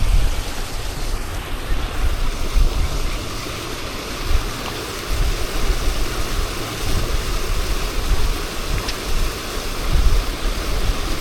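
Wind buffeting the microphone in uneven gusts over a steady rush of water.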